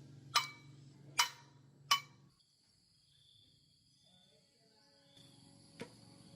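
Three sharp metal strikes, each ringing briefly, about three-quarters of a second apart, followed by a quieter stretch with a thin steady high tone.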